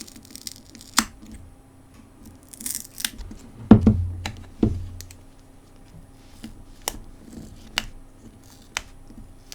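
Plastic back cover of a Samsung Galaxy A70 being pried off its adhesive: scattered clicks and scrapes, a short peeling hiss about three seconds in, then a few louder knocks of the phone being handled just before the middle.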